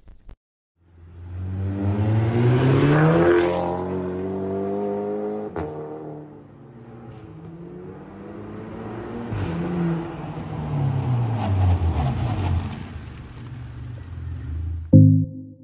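Volkswagen Golf GTI (Mk6) 2.0-litre turbocharged four-cylinder engine accelerating hard, its note rising in pitch for a couple of seconds, with a single sharp crack about five seconds in. It revs up again, then falls away as the car drives past.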